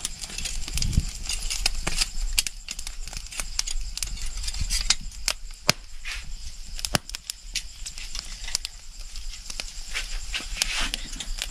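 Open wood fire crackling, with irregular sharp pops, under whole squid grilling on a wire grate.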